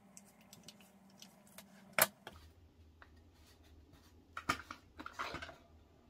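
Needle-nose pliers clicking and scraping on a threaded plastic slip-ring retainer as it is turned out of a pool cleaner's swivel unit. Small scattered clicks, one sharp click about two seconds in, and a cluster of clicks and rubbing near the end as the black plastic piece comes out of its housing.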